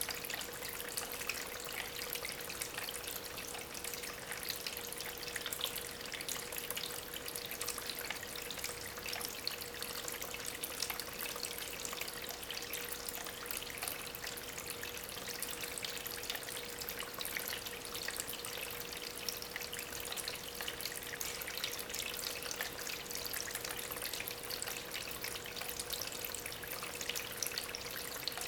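Small homemade waterfall trickling and splashing steadily over stones, water driven by a small aquarium pump, with a faint steady hum underneath.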